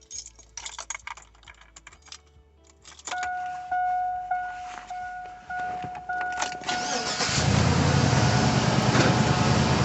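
Keys and small clicks, then the SUV's dashboard chime beeping repeatedly, and about seven seconds in the engine starts and keeps running.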